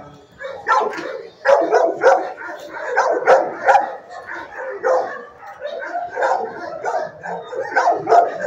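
Dogs barking and yipping over and over in a shelter kennel, the barks overlapping in a continuous din.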